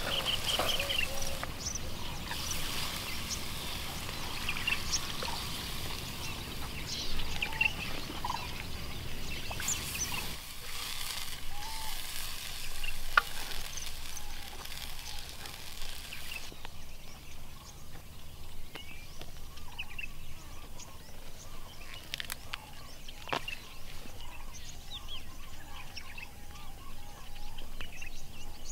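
Outdoor ambience of many birds chirping and calling in short repeated notes, with a few sharp clicks. A hiss underneath stops a little past halfway.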